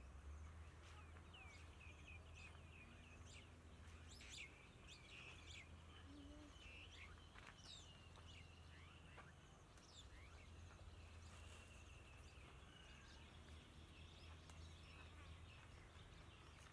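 Faint outdoor birdsong: small birds giving scattered short chirps, with a longer trill a little past the middle, over a steady low background rumble.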